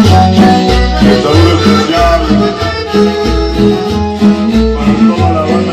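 Upbeat Latin dance music in cumbia style played through a sound system, with accordion over a bass line that steps steadily between two notes.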